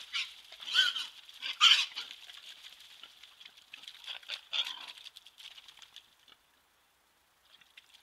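Wild boars squealing as two of them jostle nose to nose. There are two loud squeals in the first two seconds, then a few shorter squeals and scuffling clicks around four to five seconds.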